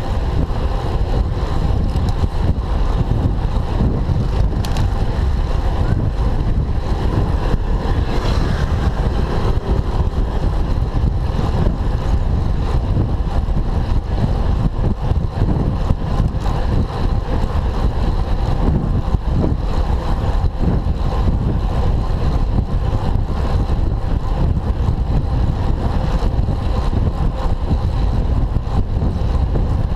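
Steady wind rushing over the microphone of a camera on a moving road bike, a continuous low rumble mixed with road noise.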